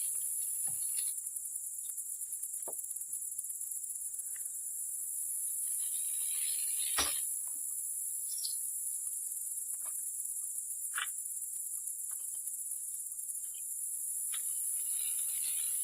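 Steady high-pitched chorus of insects, with scattered light clicks and one sharper knock about seven seconds in.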